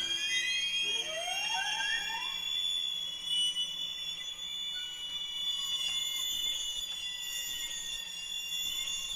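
Experimental music score of high, sustained tones stacked in a dense cluster, with sliding pitches rising into it in the first seconds and a few short upward glides a couple of seconds in.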